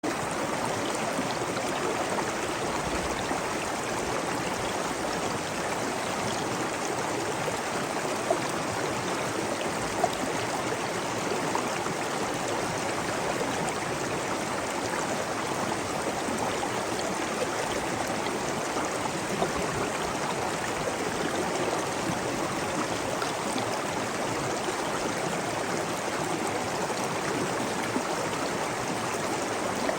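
Water flowing steadily in a stream, a continuous even rush with small splashes and gurgles scattered through it.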